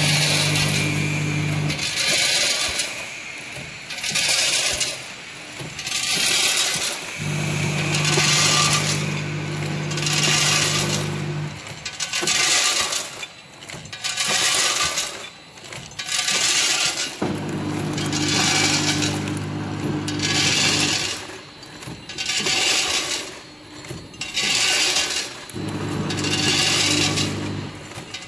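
Small vertical form-fill-seal packing machine running, with a rattling rush about once a second as doses of small round steamed-bun snacks drop from the volumetric cups into the bags. A low hum comes and goes in stretches of a few seconds.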